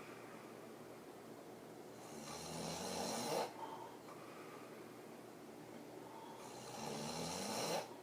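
A woman sleeping on her back snoring hard through an open mouth: two loud snores about four seconds apart, each building for about a second and a half and then cutting off sharply, with quieter breathing between.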